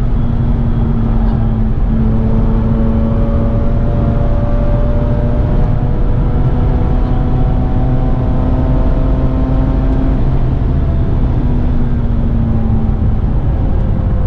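Mazda RX-8's twin-rotor rotary engine pulling hard at steady high revs, heard from inside the cabin over heavy road and tyre rumble. The engine note climbs slowly and shifts about two-thirds of the way through.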